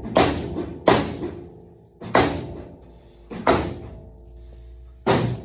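Five heavy blows on a race car's sheet-metal fender, each a sharp bang followed by a short metallic ring, struck about a second or more apart while a crease is being beaten straight.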